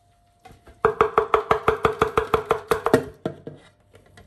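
A plastic jar knocked rapidly against a stainless steel mixing bowl to shake ground walnuts out into the batter. About ten quick taps a second for some two seconds make the bowl ring, then a few softer taps follow.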